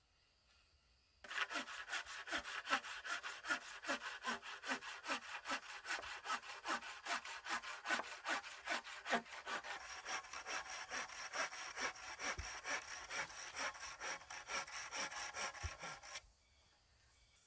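Small hand saw with a yellow handle cutting through a wooden pole in quick, even back-and-forth strokes, about three a second. The sawing starts suddenly about a second in, turns brighter in tone about ten seconds in, and stops suddenly near the end.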